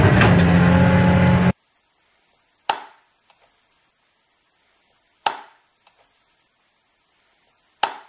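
A loud opening sound cuts off suddenly about a second and a half in; then three sharp plastic clicks, about two and a half seconds apart, as the toy excavator's plastic stabilizer legs are pushed down and snap into place.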